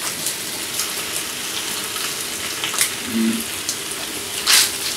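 Food sizzling in a frying pan as it is stirred with a spatula, with a few sharp clicks of the spatula against the pan.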